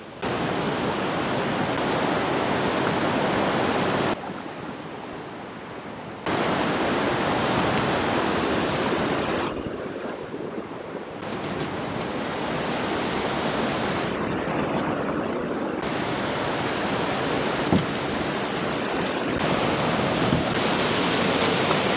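Steady roar of whitewater pouring from a dam spillway, a dense rushing noise that drops suddenly quieter for a couple of seconds now and then and jumps back.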